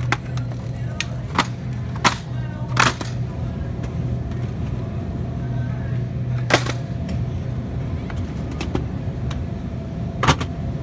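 Wire shopping cart rolling over a hard store floor: a steady low rumble with the basket rattling and clanking every few seconds.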